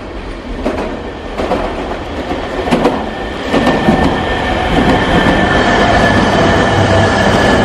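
E3-700 series Shinkansen train set pulling in and running close past, its rumble of wheels on rail growing steadily louder. A few sharp clacks sound in the first three seconds, and a steady whine comes in about halfway.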